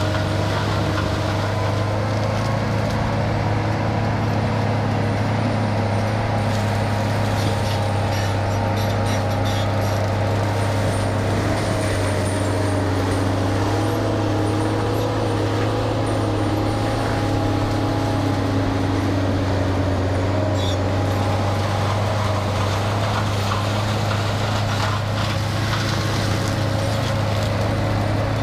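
Engine of the heavy tree-removal machine running steadily at constant speed: a low, even hum with fainter higher tones that drift slightly in pitch.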